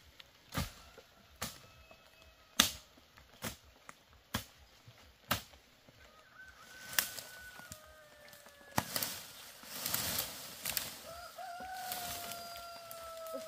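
Sharp knocks about once a second for the first six seconds, then a rooster crowing twice in long drawn-out calls, the second the longer, with rustling in between.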